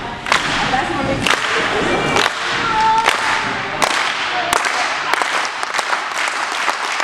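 Sharp hand claps, about one a second, keeping the count for a cheerleading routine, over the voices of the team. The claps ring off the walls of a large sports hall.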